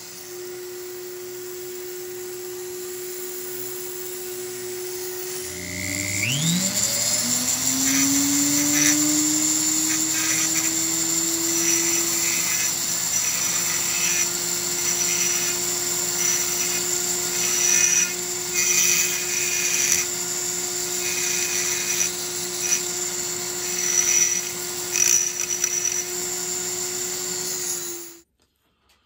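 High-speed rotary tool with a small burr grinding out the transfer ports of a Homelite Super XL-130 chainsaw. Its steady whine dips and spins back up about six seconds in, then runs on with irregular bursts of the burr biting into the metal, and it cuts off suddenly near the end.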